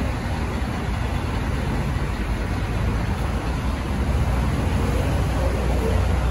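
Steady rumble of street traffic, a little louder from about four seconds in.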